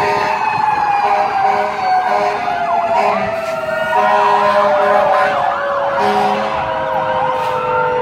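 Several emergency-vehicle sirens from fire trucks and a police car sounding together: rising and falling wails and quick yelps over one long tone that slowly drops in pitch. Steady horn blasts come in at about four seconds and again at about six seconds.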